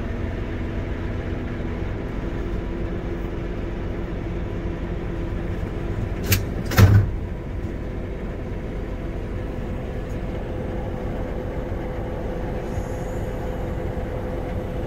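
John Deere 9620R four-track tractor running steadily under way, with two short loud thumps about six and seven seconds in, the second the louder.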